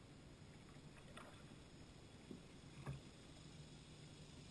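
Faint kayak paddle strokes in calm water: a few soft splashes and drips about a second in and again near three seconds, the last with a light knock, over an otherwise near-quiet background.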